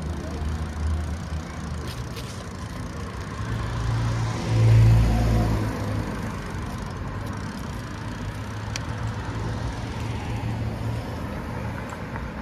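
City street traffic with a steady low engine hum. About five seconds in, a car passes close by: its engine rumble and tyre noise swell to the loudest point, then fade.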